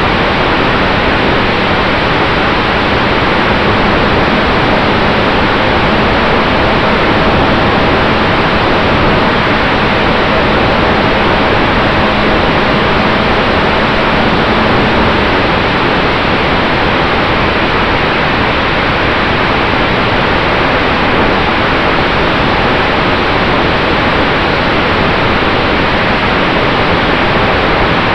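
Steady loud rush of wind over the onboard camera's microphone on a radio-controlled P-51 Mustang model in flight, mixed with its motor and propeller, with a faint steady hum underneath.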